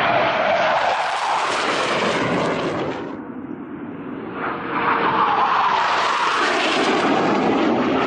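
Loud jet noise from a Panavia Tornado's twin turbofan engines as it flies low past, swelling and fading. The sound cuts off abruptly about three seconds in, and a second low pass swells up about a second and a half later.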